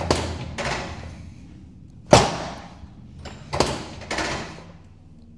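Chiropractic drop table's pelvic section snapping down under sacral adjustments: five sharp clacks, two of them much louder, with the tension set low for a light patient.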